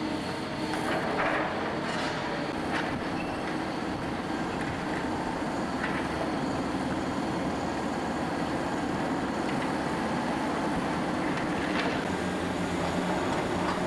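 Demolition excavator running steadily while its hydraulic grapple works a steel beam section, with a few short metallic clanks about one to three seconds in and again near the end.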